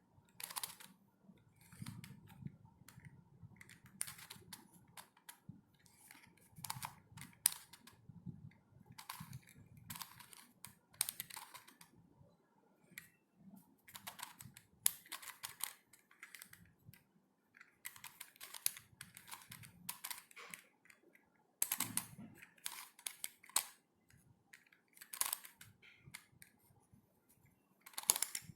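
Plastic pieces of a corner-cut helicopter cube clicking and snapping as its faces are twisted, in irregular flurries of clicks every second or two, while the scrambled puzzle is worked back into its cube shape.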